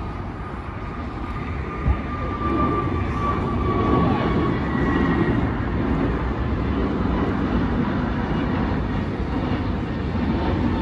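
Twin-engine jet airliner climbing out after takeoff: a broad jet engine rumble that swells about two and a half seconds in, with a high whine slowly falling in pitch. A single short knock about two seconds in.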